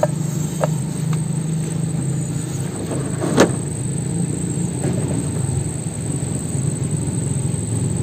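Steady low hum, with one sharp click about three and a half seconds in as the hot-water-softened plastic car bumper is pressed by hand to push out the dent.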